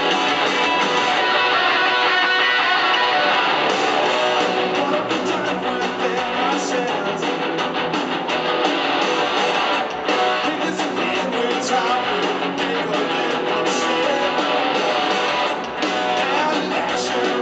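Live rock band playing in an arena: electric guitars, bass guitar and a drum kit, loud and steady. The deepest bass fills in about four seconds in.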